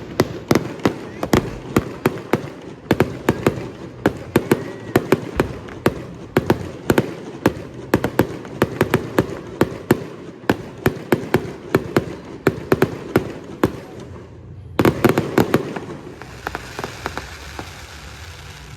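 Fireworks display: sharp bangs of bursting aerial shells in a rapid, irregular volley, several a second. After a brief lull a little before the end, a last cluster of bangs gives way to a steady hiss.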